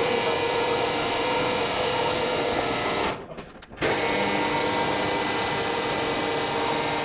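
Matterson electric lifting jacks running as they raise a steam locomotive's frames, a loud steady motor drone with a held tone in it. The jacks stop for under a second about three seconds in, then start again.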